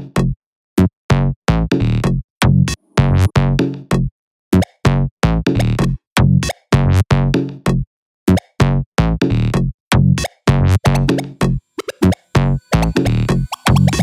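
Electronic techno-house club beat from a drum machine and synths: short, chopped, stuttering hits with heavy bass. The beat cuts out to silence for brief moments about every four seconds.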